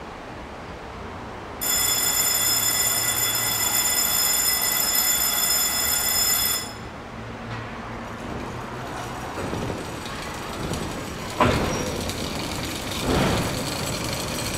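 A signal bell in a cable-car station rings steadily for about five seconds, starting about two seconds in and cutting off suddenly. A few knocks and some clatter follow near the end.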